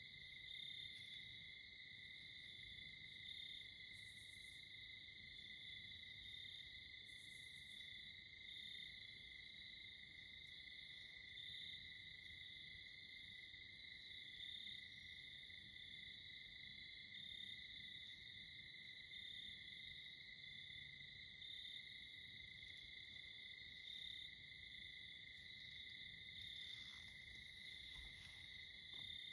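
Faint, steady chorus of crickets trilling continuously at a constant high pitch.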